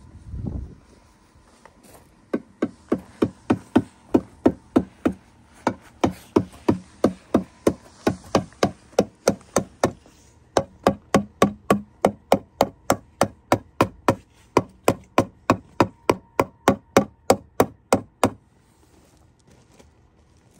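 Rubber mallet striking a wooden hot-tub stave. A steady run of sharp knocks, about two to three a second, starts about two seconds in and stops shortly before the end, with a couple of brief pauses, as the stave is tapped into place on the edge of the tub floor.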